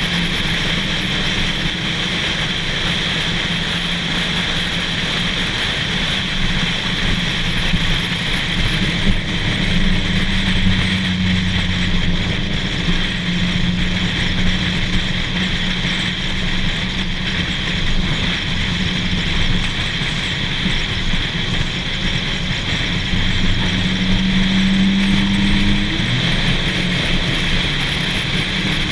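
Car engine droning steadily at cruising speed, with wind noise on the microphone; near the end the engine note climbs and then drops suddenly.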